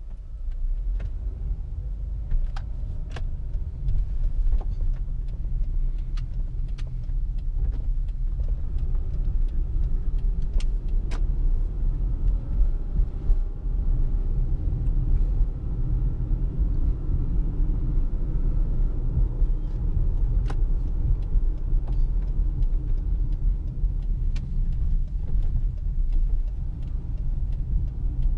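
A car driving: a steady low road and engine rumble that builds over the first few seconds, with scattered small clicks and rattles.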